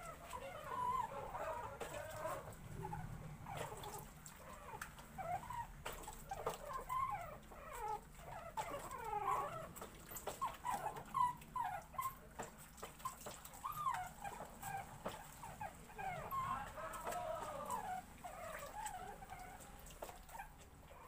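Young Shih Tzu puppies whining: a long run of short, high cries that rise and fall in pitch, one after another.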